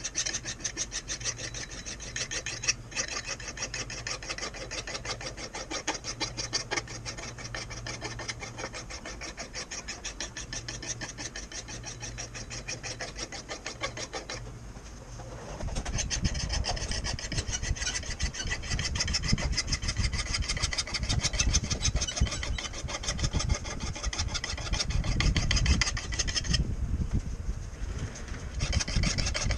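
Rapid, even rasping strokes of hand abrasive work on an old Collins double bit axe, many strokes a second. About halfway through a heavier low rumble joins the strokes.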